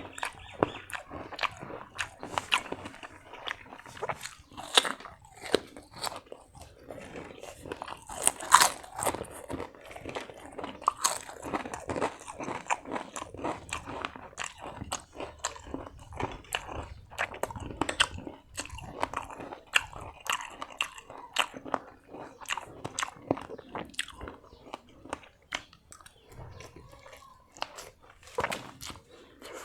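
A person eating close to the microphone: irregular biting and chewing with many sharp little crackles, loudest around a third of the way in.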